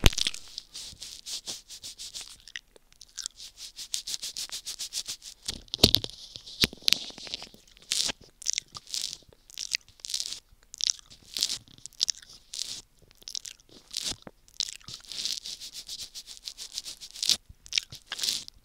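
Wet mouth sounds right against a microphone: tongue licking and lips smacking in a stream of small, irregular clicks. They start as a rapid patter of little clicks, then from about six seconds in turn into louder separate smacks, a few a second.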